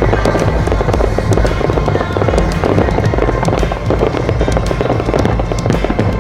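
Fireworks going off in quick succession: a dense run of sharp crackles and pops over a continuous low rumble. Music plays along with it.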